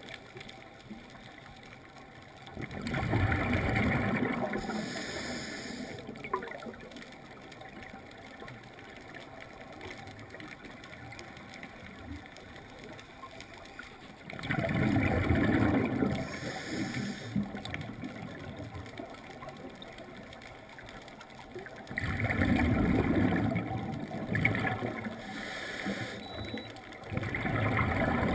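Scuba diver's exhaled air bubbling out of the regulator and rushing past the underwater camera in bursts of two to three seconds. It comes four times, once for each breath out, with quieter stretches of water noise between.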